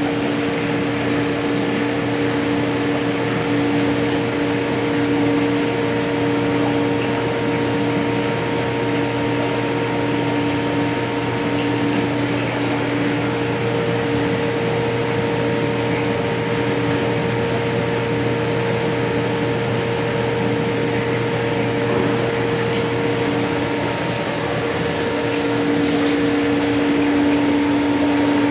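Steady hum of running machinery, with a few constant tones over a bed of hiss, unchanging throughout.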